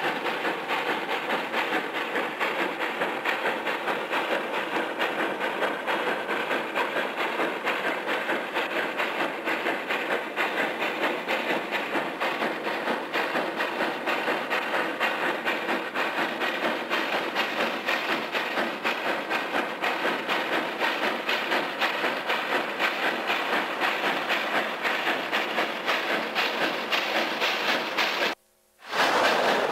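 Steam locomotive working hard up a grade, its exhaust beating in a quick, even rhythm of chuffs with steam hiss. The sound cuts out completely for about half a second near the end.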